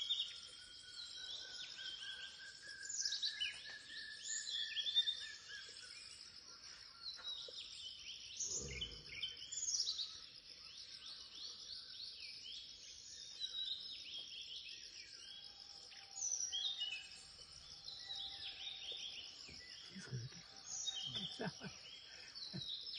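Forest ambience: many birds chirping and calling over a steady high insect drone, with a long whistled note in the first few seconds. A brief low thud comes about nine seconds in, and a few low knocks near the end.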